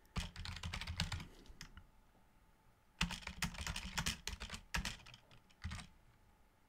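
Typing on a computer keyboard: two quick runs of keystrokes with a pause of about a second between them, then a last stray key or two.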